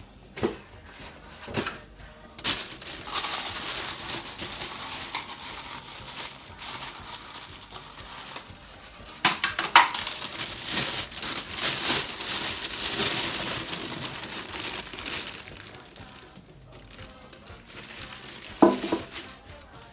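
Packaging being handled while a pressure cooker is unpacked: a long stretch of crinkling plastic or paper, with sharp knocks and clinks from the cooker's parts.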